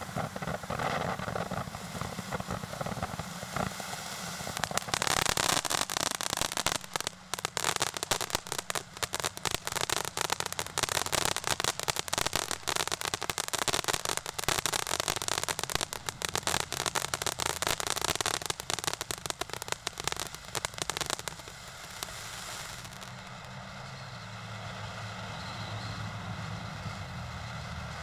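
Snow Cone ground fountain firework burning, a steady hiss of spraying sparks. From about five seconds in until about twenty-one seconds it crackles densely, with many rapid pops, then settles back to a quieter, steadier hiss.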